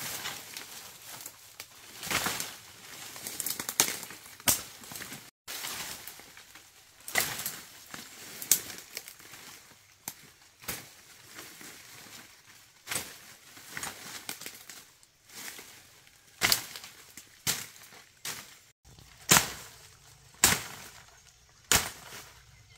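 Sharp knocks or strikes at irregular intervals, roughly one every second or two, with rustling and crackling in between.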